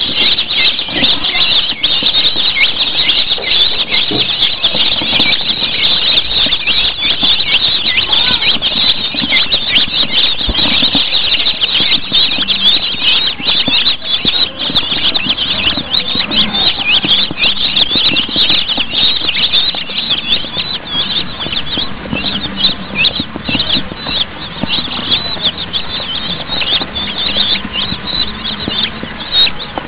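A crowd of newly hatched chicken chicks peeping continuously, many high-pitched cheeps overlapping into a dense chorus that thins slightly toward the end.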